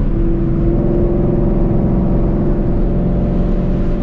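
Car engine and road noise heard from inside the cabin of a Ford Mustang cruising at highway speed, a steady drone with a constant engine hum.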